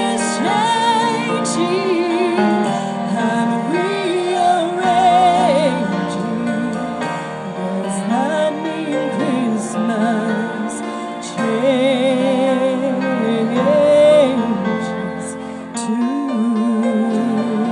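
A woman sings a slow song with vibrato into a microphone over a sustained instrumental accompaniment, amplified through a PA.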